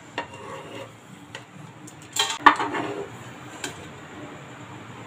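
Wooden spatula scraping and knocking against a pressure cooker pan as dry-roasted cardamom pods are pushed out onto a steel plate, with a louder clatter a little past two seconds in.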